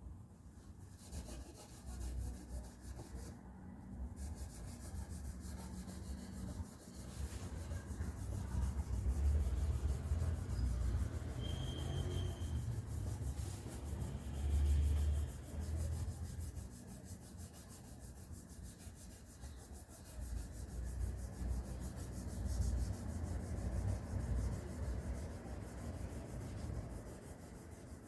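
Hand sanding on wood: repeated rubbing strokes against sandpaper, heaviest in the middle and again near the end.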